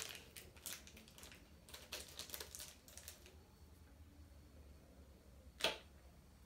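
Small plastic accessories and packaging being handled and set down: a run of light clicks and rustles for about three seconds, then one sharper click near the end.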